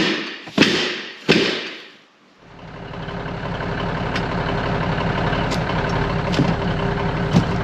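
Three heavy thumps within the first second and a half, then, after a brief fade, a pickup truck's engine idling steadily, with a few light knocks as boxes are handled.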